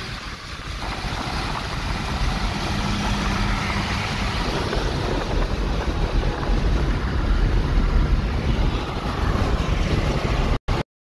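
Road and wind noise inside a car driving at highway speed: a steady rushing with a low rumble that grows louder about a second in, then cuts off suddenly near the end.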